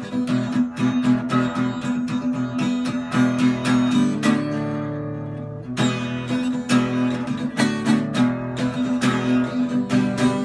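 Acoustic guitar strummed in a steady rhythm, with one chord left ringing for about two seconds midway before the strumming picks up again.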